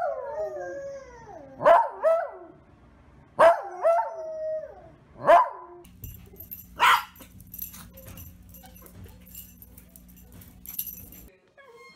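A dog howling with its muzzle raised: three or four drawn-out howls, each sliding down in pitch. After a cut, a different dog gives a single short bark, followed by scattered light clicks.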